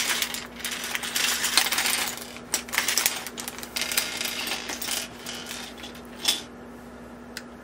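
Small plastic Lego pieces clattering onto a tabletop as a bag of parts is emptied out. A dense rattle of clicks lasts about five seconds, then a few scattered clicks follow, one louder near the end.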